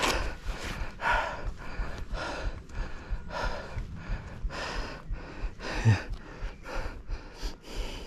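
A man breathing hard and fast close to the microphone, about two breaths a second, with a short grunt about six seconds in.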